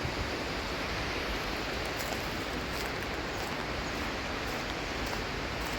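Steady rushing noise of a swollen river's fast-flowing floodwater.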